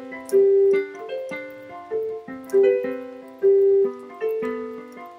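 A piano-sound keyboard playing a slow melody: single notes and the odd two-note chord, about two a second, each struck and left to ring and fade.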